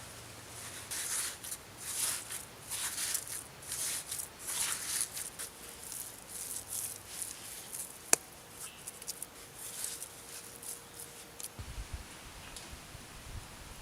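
Irregular scraping and rustling handling sounds, denser in the first half, with one sharp click about eight seconds in.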